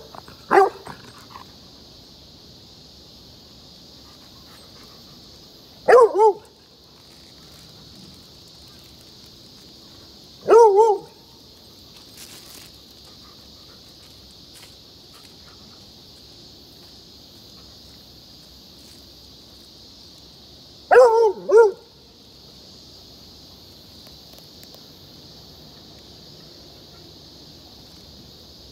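American Foxhound barking at a crayfish out of fear, in four short bursts of one to three barks several seconds apart.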